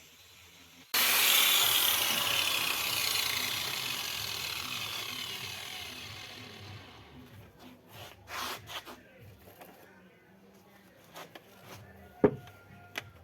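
Angle grinder winding down: a loud whine that starts suddenly, then falls in pitch and fades over about six seconds. A few light knocks follow, with one sharper tap near the end.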